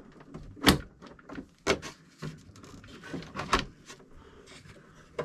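Sharp clicks and knocks of hand tools and small plastic parts being handled while working on an RC truck's servo saver, with three louder knocks spaced one to two seconds apart and lighter taps between them.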